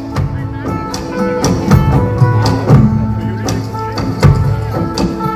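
Live ensemble music: plucked string instruments playing sustained notes over repeated drum strikes.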